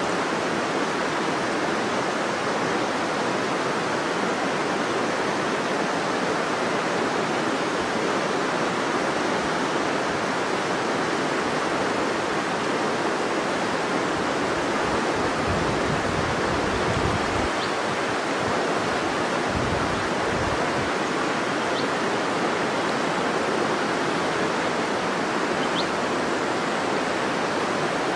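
River water rushing steadily over its bed: a constant, even hiss of flowing water.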